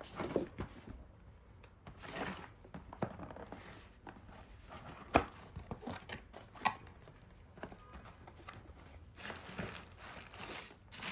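Product packaging being opened by hand: irregular crinkling and tearing rustles with scattered sharp clicks, the loudest about five seconds in.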